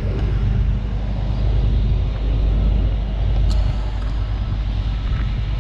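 Steady low rumble of street traffic, with a brief click about three and a half seconds in.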